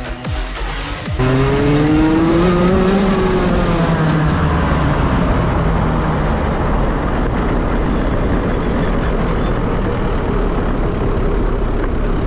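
Racing kart engine heard from onboard, starting suddenly about a second in with its pitch rising over the next two seconds as it accelerates, then running on steadily at speed.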